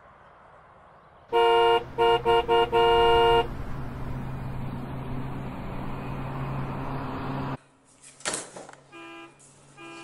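Car horn honking: a long blast, a quick run of short toots, then another long blast. Steady street traffic noise follows for several seconds.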